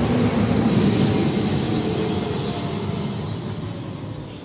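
Loud rumble of a passing vehicle, fading steadily away, with faint held tones over the noise.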